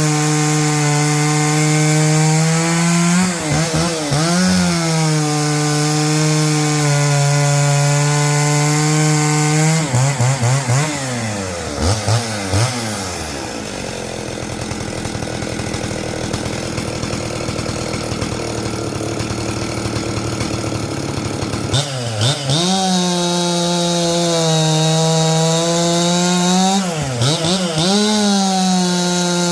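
A 49cc Stihl two-stroke chainsaw running at high revs while cutting firewood, its note dipping briefly as it works. About ten seconds in the throttle drops off and the pitch falls to a lower, quieter run. About 22 seconds in it revs back up and cuts again.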